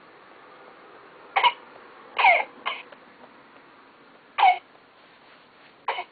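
Infant simulator doll giving a run of five short, baby-like coughs at uneven gaps, each one dropping in pitch.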